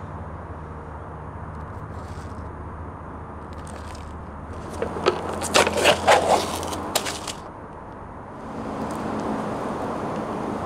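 Foil lid being peeled back from a paper instant-noodle cup: a loud crinkling crackle from about five to seven seconds in, over a steady low background hum.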